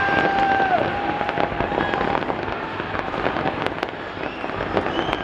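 Fireworks display crackling and popping, with many rapid small cracks over a continuous rumbling bed. A steady high tone sounds through the first two seconds.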